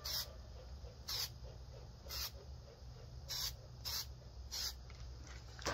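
Aerosol can of high-heat spray paint hissing in short bursts, six in all, roughly a second apart, as a coat goes onto small woodstove parts.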